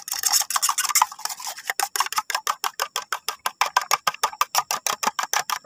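Metal spoon beating raw eggs in a stainless steel bowl: fast, even clicking of the spoon against the bowl's side and bottom, about seven strokes a second.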